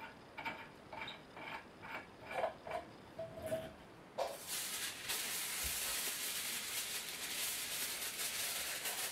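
Hands handling material: a run of light clicks and taps, then, from about four seconds in, a steady crackly rustling that carries on.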